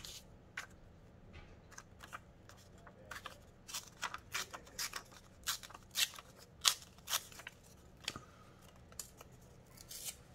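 Scissors snipping through paper: a run of short, crisp, irregular cuts, quickest and loudest through the middle.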